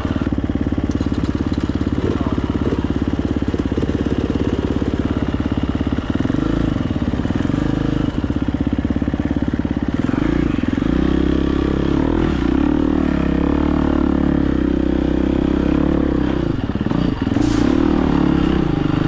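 Dirt bike engine running under load on a trail ride, steady at first, then rising and falling in pitch with the throttle and gear changes.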